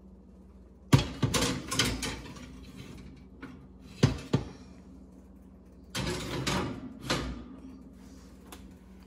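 Metal mini-muffin tins clanking and scraping against a wire oven rack: a rattle of clanks about a second in, two sharp knocks around four seconds, and a longer metal scrape around six to seven seconds.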